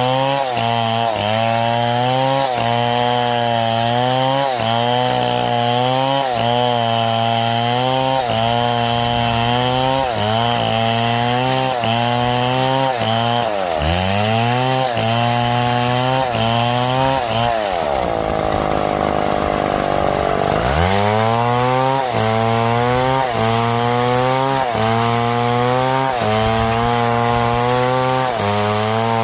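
Chainsaw cutting wood, its engine pitch dipping and recovering about once a second as the chain loads in the cut. About two-thirds of the way through, the pitch drops and stays low for a couple of seconds before climbing back.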